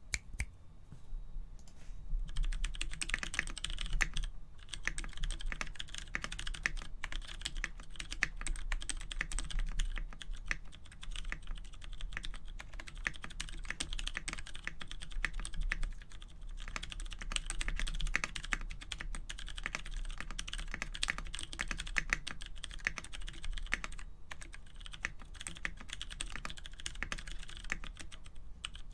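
Fast, continuous typing on a mechanical keyboard with lubed, polycarbonate-filmed Cherry MX Clear switches. The spacebar sits on a lubed vintage MX Black switch with lubed clip-in stabilizers. The keystrokes start about two seconds in and run on, with a few short pauses.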